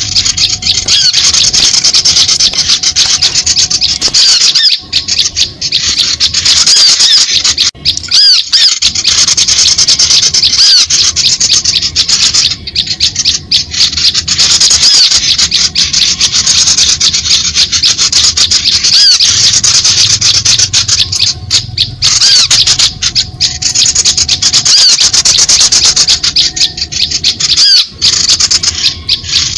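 Bird-lure recording of small songbirds: a dense chatter of rapid, high-pitched chirps and twitters, breaking off briefly a few times. It is a lure call played to draw small birds in.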